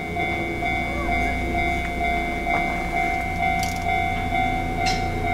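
DD51 diesel locomotive with a train of tank wagons approaching in the distance: a low steady engine hum beneath a repeating ringing tone, about two dings a second.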